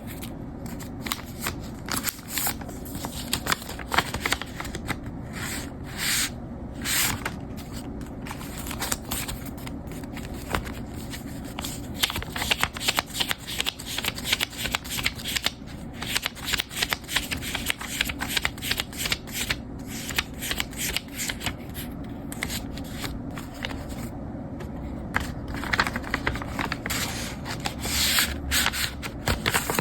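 Paper handled close up: rapid rustling and flicking of sheets, in bursts that get busier and louder at times.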